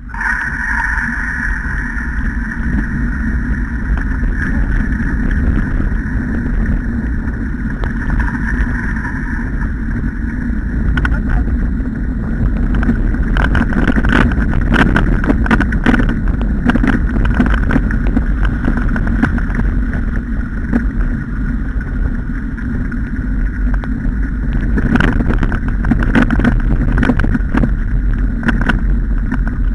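Steady rolling rumble and rattle of a dog-pulled training rig running over a wet gravel track, with a steady high whine over it and clusters of jolts where it runs over bumps.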